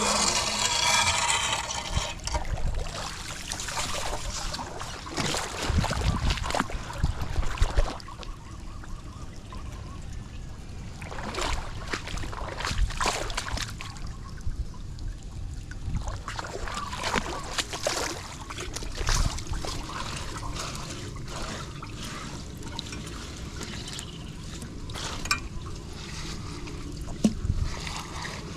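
Floodwater trickling and splashing into a blocked street drain, with scattered knocks and splashes, loudest in the first eight seconds.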